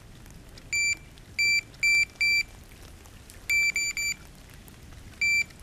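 Cheap electronic bite alarm on a fishing rod giving short, high beeps: four spaced beeps, a quick run of three, then one more near the end. The alarm is being set off by hand while its sensitivity setting is tested, so that it beeps only after a longer pull of line.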